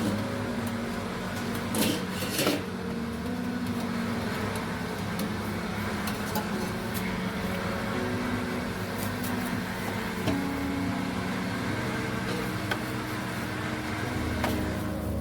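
A machine hums steadily, with a few sharp knocks about two seconds in.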